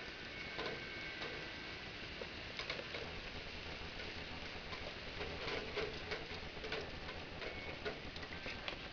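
Steady rain hiss with irregular raindrops tapping and ticking on hard surfaces, thickest about five to seven seconds in. A wind chime's ringing tones fade out near the start.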